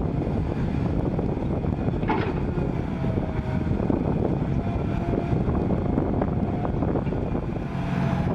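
Excavator's diesel engine running steadily, with wind buffeting the microphone. There is a brief squeak about two seconds in, and short thin whines follow.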